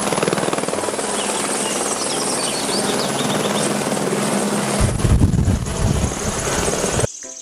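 Single-engine light helicopter, an AS350 Écureuil type, flying low, its rotor blades beating in a steady, rapid chop under the turbine's whine. About five seconds in the beat grows louder and deeper, then it cuts off abruptly just before the end.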